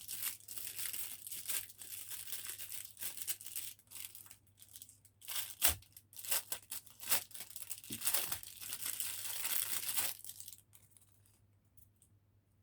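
Wrapping on a surprise fidget toy being torn open and crinkled by hand: irregular rustling and sharp crackles that stop about ten seconds in.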